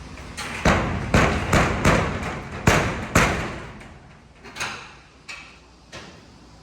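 A run of heavy knocks and bangs from work fastening a shop's shutter: about seven in quick succession, then three fainter ones spaced out toward the end.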